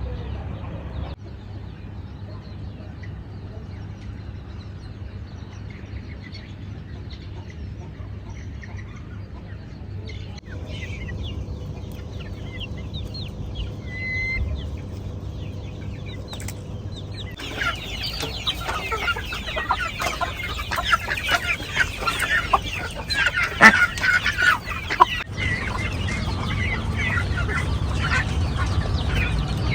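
A flock of chickens clucking, many short calls overlapping over a steady low hum. The clucking grows much louder and busier about two-thirds of the way through.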